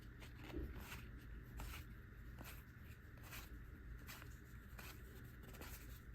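Pokémon trading cards being slid one by one through the hands from a freshly opened booster pack: faint, soft card swishes, roughly one or two a second.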